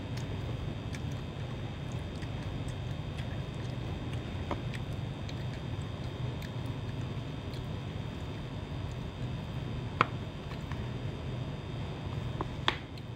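Steady low room hum with occasional light clicks of a metal spoon against a plastic food container as rice is scooped; the sharpest click comes about ten seconds in.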